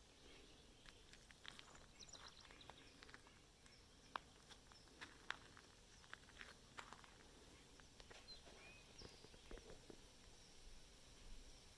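Quiet outdoor ambience: scattered faint clicks and ticks at irregular intervals, with a brief bird chirp or two.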